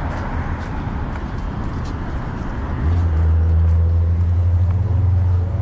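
City street traffic, then a vehicle engine running close by as a steady low hum that comes in loudly about three seconds in.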